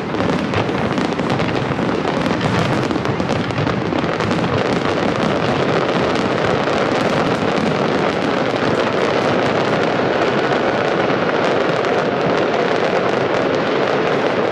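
Large aerial fireworks display at its finale: a dense, continuous barrage of bursts and crackling.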